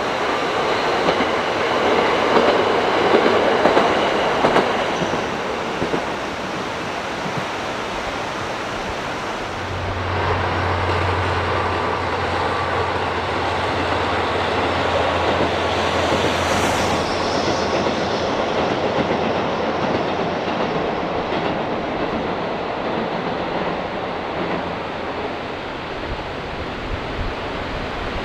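Diesel train running past on the line, with a steady low drone from about ten seconds in until a little after twenty seconds.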